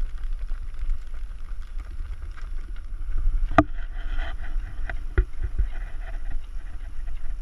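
Rumble of wind and motion on the microphone of a GoPro carried by a runner, pulsing with the jolts of the stride, with a sharp knock about three and a half seconds in and a smaller one about five seconds in.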